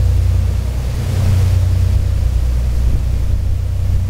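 Catalina Flyer ferry's engines running steadily under way as it leaves the dock: a loud, even low drone, with the rushing of the churning wake over it.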